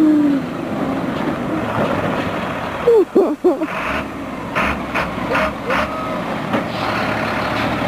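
Medium-duty box truck's diesel engine running as the truck drives slowly on packed snow. Short high squeaks rise and fall in pitch about three seconds in.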